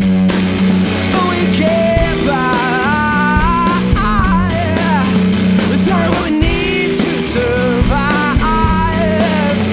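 Live blues-rock band playing: electric guitar with bending notes over a steady bass line and drum kit hits.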